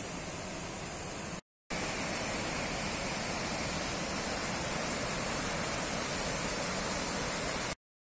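Waterfall and rapids of a river swollen with muddy rainwater: a steady rushing of water. It cuts out for a moment about one and a half seconds in and comes back slightly louder.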